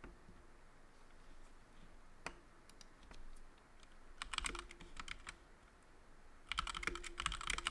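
Typing on a computer keyboard: a lone keystroke about two seconds in, a short run of keys a little after four seconds, then fast continuous typing from about six and a half seconds.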